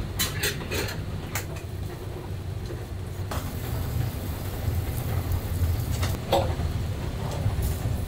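Pieces of pork belly being loaded by hand into a large stainless steel stockpot: a few sharp clinks in the first second or so, then single knocks about three, six and seven and a half seconds in, over a steady low rumble.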